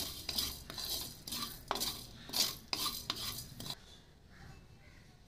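Wooden spatula stirring and scraping whole spices and poppy seeds as they dry-roast in a kadai, in short repeated strokes with light knocks against the pan. The stirring stops about three and a half seconds in.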